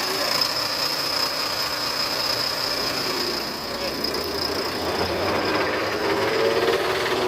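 BharatBenz heavy truck's rear differential giving a steady high-pitched whine over the running drivetrain, with the truck in gear. The mechanic takes it for a fault in the rear axle's crown wheel and pinion.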